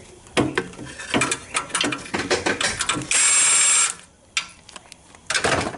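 Cordless power wrench loosening the hold-down bolts of a Toyota hybrid inverter: clicking and clanking of the socket and ratchet on the bolt, with the tool's motor spinning in one steady burst of just under a second about three seconds in, and a shorter burst near the end.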